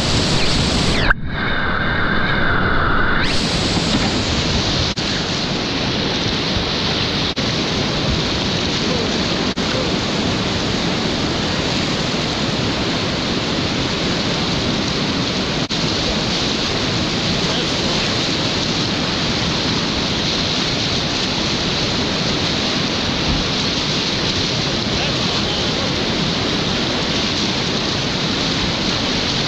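Whitewater rapids of a boulder-strewn river rushing and churning steadily, heard from a kayak at water level. About a second in, a sharp knock is followed by about two seconds of a muffled, ringing sound, after which the steady rush returns.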